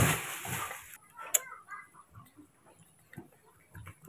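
Rustling and handling noise for about the first second, then a sharp click and faint small shuffles and clicks.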